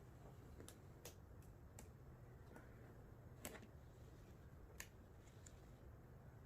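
Near silence, with about five faint, sharp clicks and crackles, the strongest about three and a half seconds in: hands peeling the top transfer layer off a vinyl decal.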